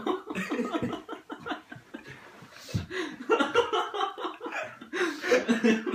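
Young men laughing and chuckling in short broken bursts.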